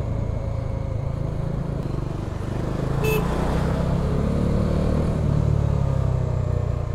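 Bajaj Dominar 400's single-cylinder engine running under way, with rushing wind noise; the engine note rises a little as the bike speeds up about three to five seconds in. A short, high beep sounds once, just after three seconds.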